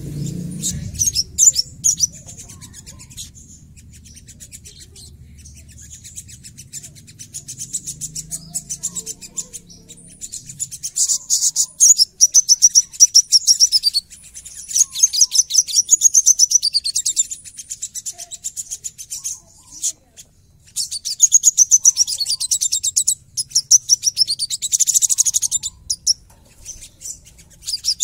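Male olive-backed sunbird singing in fast, dense, high trills and quick falling phrases, in bursts separated by short pauses. The song is soft for the first ten seconds, then loud from about eleven seconds in and again from about twenty-one seconds in.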